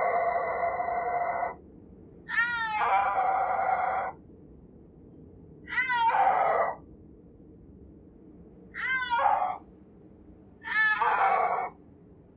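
Snow leopard calling: five loud cries about two seconds apart, the first already under way, each opening with a quick wavering pitch and then held, the first two the longest.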